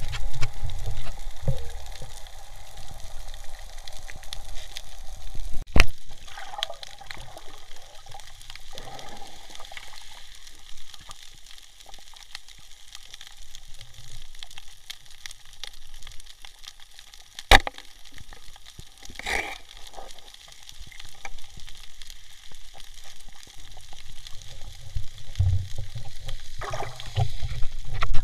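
Water sloshing and gurgling around a submerged camera, with a low rumble at the start and near the end and two sharp clicks about six and seventeen seconds in.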